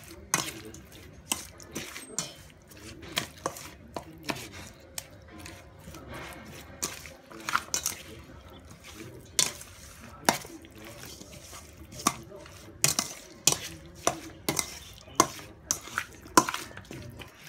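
Pork chunks being tossed by hand in marinade in a stainless steel bowl: irregular sharp knocks and taps against the metal, one to three a second, with soft wet mixing between.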